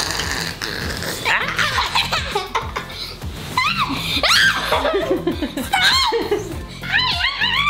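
A young girl laughing, in several high, arching bursts.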